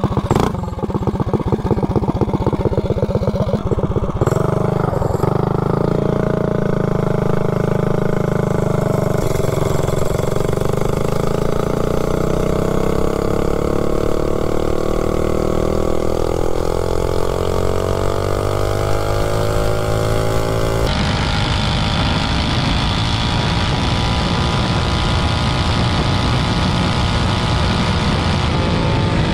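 Tillotson 263cc single-cylinder engine on a mini bike running, first at low revs, then with its pitch shifting as the throttle is worked while riding. The sound changes abruptly about two-thirds of the way through.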